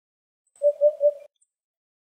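Eurasian hoopoe giving its song: a single phrase of three soft, low hoots in quick, even succession, "oop-oop-oop".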